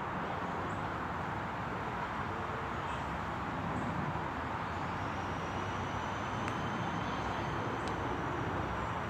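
Steady outdoor city background noise, like a wash of distant traffic, with a faint high thin whine joining about halfway through.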